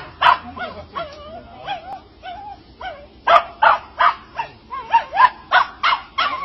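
A dog barking repeatedly in short, sharp barks, with high whines between them. The barks come in a quicker run from about three seconds in.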